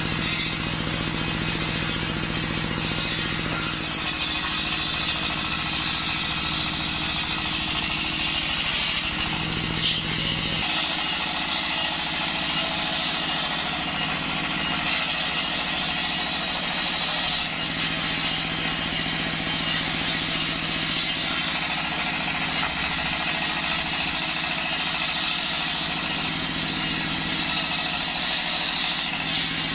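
A belt-driven circular saw ripping a waru (sea hibiscus) log lengthwise, over the steady running of the single-cylinder diesel engine that drives it. The sound is loud and even throughout, and its tone shifts abruptly about ten seconds in.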